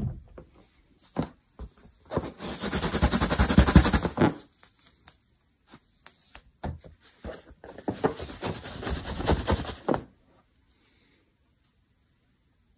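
Rubber balloon rubbed hard against hair, a scratchy squeaking rub in two spells of about two seconds each, one around two seconds in and one near eight seconds in, charging the balloon with static electricity. It stops about ten seconds in.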